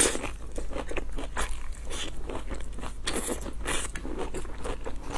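A person biting into food and chewing it close to the microphone, with wet mouth clicks and smacks. A sharp bite comes right at the start, and a cluster of louder mouth noises comes around three seconds in.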